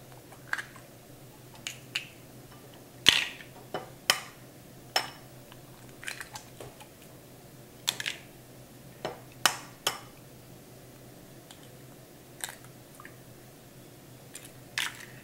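Eggs being cracked against a stainless steel stand-mixer bowl: a dozen or so sharp taps and cracks at irregular intervals.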